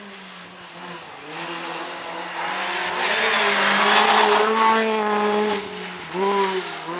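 Opel Adam rally car at full speed on a tarmac stage, its engine growing louder as it approaches and loudest as it passes close, about four seconds in. The engine note then drops in pitch as the car goes by, and rises briefly again near the end.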